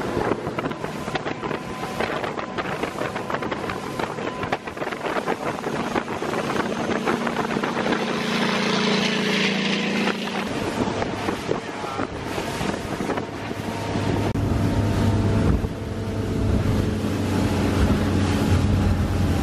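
Motorboat running at speed: a steady engine drone under rushing wind on the microphone and the hiss of spray and wake. The engine note drops lower and grows louder about two-thirds of the way through.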